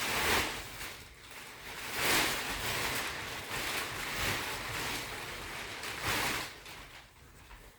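Plastic wrapping from a vacuum-packed mattress rustling and crinkling as it is pulled and gathered, in about four swishes, then settling quieter near the end.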